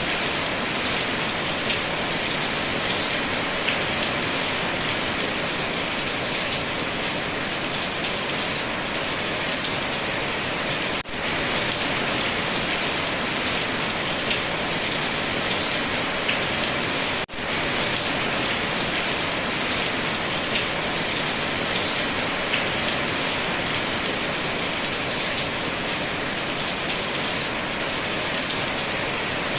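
Steady heavy rain, a dense hiss full of small drop ticks, briefly cutting out for an instant twice.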